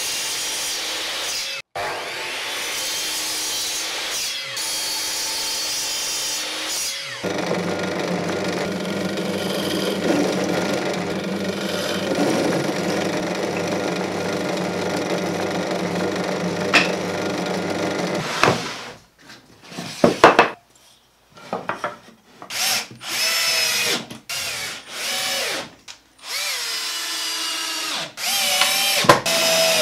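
Power-tool work at the bench in three stages. A Metabo sliding mitre saw runs and cuts for the first several seconds; then a benchtop drill press runs steadily while drilling wood for about eleven seconds. From about 19 s on, a cordless drill drives screws in a series of short bursts, each rising in pitch as it spins up.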